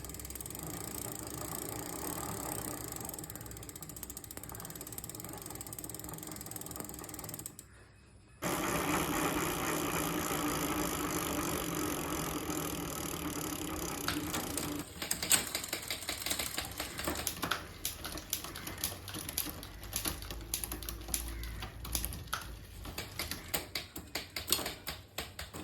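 Mountain-bike drivetrain turned by hand: the chain runs steadily through the freshly cleaned and greased rear-derailleur jockey wheels. About halfway through, a run of ratchet clicking takes over, from the rear hub freewheeling.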